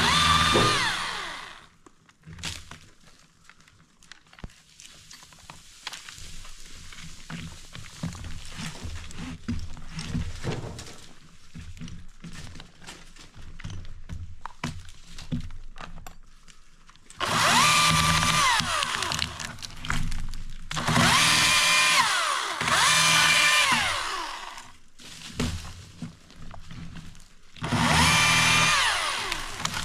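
Electric chainsaw run in four short bursts, its motor whine rising as it spins up and falling as it coasts down each time the trigger is released. Quieter scattered clicks and knocks fill the gaps between bursts.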